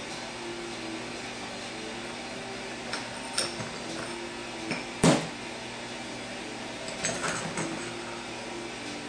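Turbo 400 transmission gearset parts clinking and knocking as they are handled and set down on a diamond-plate steel bench: a few scattered knocks, one much louder about five seconds in and a short cluster near the end, over a steady hum.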